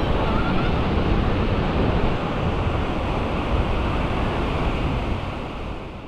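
Sea surf breaking and washing up the sand in the shallows, with wind buffeting the microphone. It fades out near the end.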